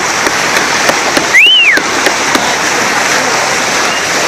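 Steady rush of water and wind noise aboard a moving boat at sea. About a second and a half in, a single high whistle rises and then falls in pitch.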